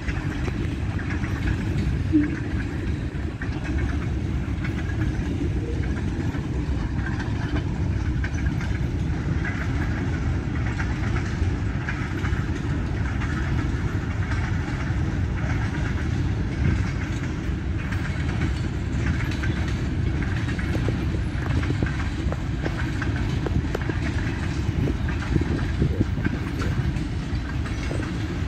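Freight cars of a passing train rolling along the track at a steady speed: a continuous low rumble of steel wheels on rail, with scattered faint clicks.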